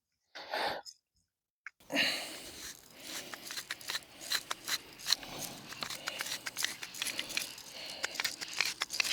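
Salt grinder being twisted over the steaks, crunching coarse salt in a dense run of irregular clicks that starts about two seconds in after a short gap.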